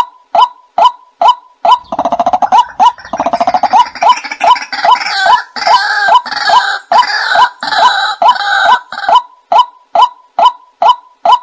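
White-breasted waterhen calls from a bird-lure recording: a steady run of short, identical notes about two a second. From about two seconds in they are joined by a denser, noisier stretch of overlapping calls, which ends about nine seconds in.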